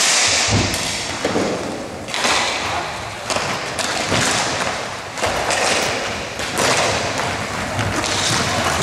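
Thumps and thuds of an indoor ball game, about one a second and echoing in a large hall, over a steady background din.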